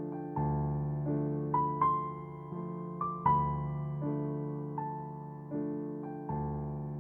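Background music: slow, gentle electric-piano chords, each struck and left to fade, with a melody moving up and down above them.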